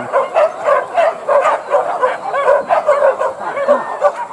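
A pack of boar-hunting dogs barking and yelping, several at once, in quick overlapping calls a few times a second.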